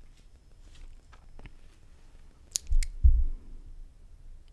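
Handling noise close to the microphone: two sharp clicks about two and a half seconds in, followed by a pair of dull low thumps, over faint room tone.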